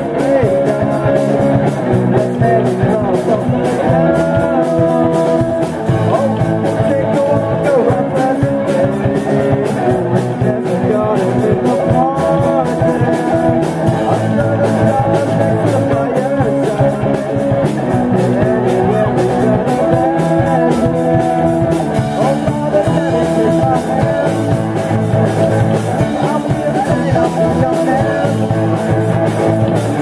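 Amateur rock band playing live: drum kit, bass guitar, electric guitar and keyboard playing a song together.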